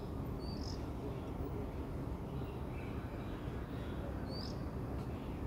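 Steady low rumble of outdoor industrial background noise, with two short high bird chirps: one about half a second in and one near the end.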